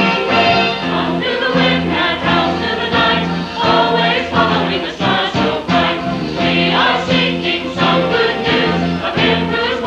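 Church chancel choir singing a Christmas cantata, with sustained low notes from the instrumental accompaniment beneath the voices.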